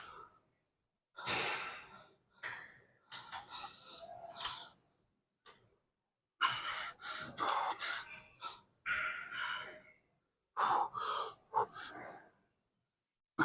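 A person breathing hard with gasps, in a string of short bursts broken by silent gaps, typical of recovery from a hard lifting set.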